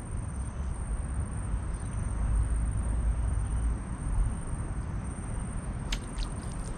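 Outdoor ambient noise: a steady low rumble, with a faint steady high whine and a few faint clicks about six seconds in.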